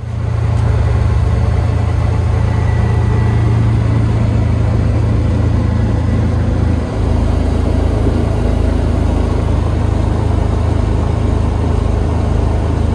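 Can-Am side-by-side's engine running steadily while under way, heard from the open cab: a constant low drone with a rushing noise over it. The drone dips briefly about seven seconds in, then carries on.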